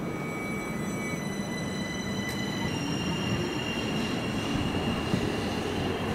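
A train moving along the station platform: a steady low rumble with several high-pitched tones from the wheels and running gear over it, one tone rising slightly about two and a half seconds in.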